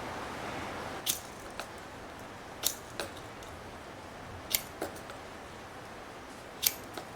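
Short, sharp scrapes of a Leatherman Micra's nail file hook struck along a ferro rod, seven strokes, mostly in pairs about a third of a second apart.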